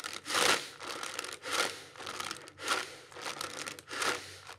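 Paper-bag rebreathing: heavy breaths in and out of a brown paper bag, with a loud rush of air about once a second, four times. The paper crinkles and crackles as the bag fills and collapses.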